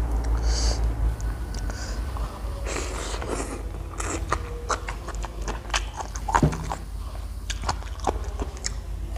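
Close-up chewing and biting, with many short crunchy clicks, of someone eating pickled shrimp in a spicy papaya salad. A steady low hum runs underneath, stronger for the first two seconds.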